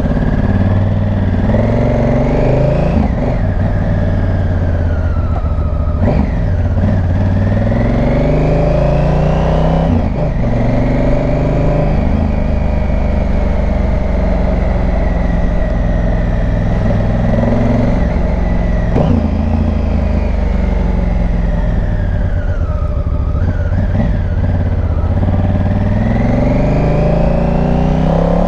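Motorcycle engine under way, revs climbing and dropping back several times as it shifts up through the gears. It holds a steady cruise in the middle, slows, then accelerates again near the end, with wind rush underneath.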